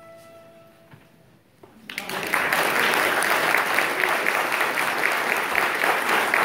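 The last violin note dies away into a short hush, then applause breaks out about two seconds in and keeps going.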